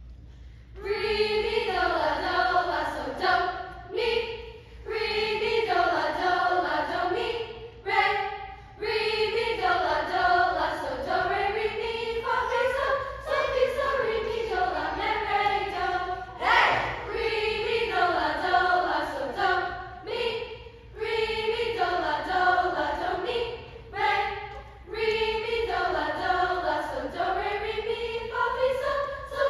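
Mixed-voice middle school choir singing together, starting about a second in, in long phrases broken by short breaths.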